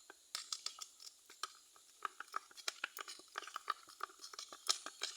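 Homemade glue slime being kneaded and stretched by hand, giving an irregular run of small wet clicks and pops.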